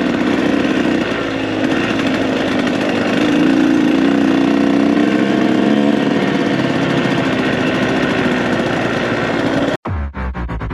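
KTM 125SX two-stroke dirt bike engine running steadily on the trail, its pitch rising and falling gently with the throttle. About a second before the end it cuts off abruptly, and a different low, pulsing sound follows.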